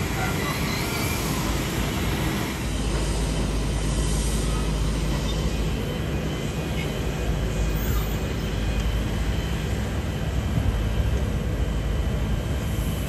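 Steady low rumble of airport apron ambience: distant jet aircraft engines and ground traffic. The low rumble deepens about two and a half seconds in.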